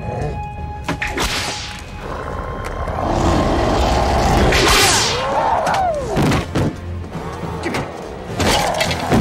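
Fight-scene sound effects over a music score: a string of sharp hits and thuds, with a loud noisy swell and sweeping, gliding tones near the middle.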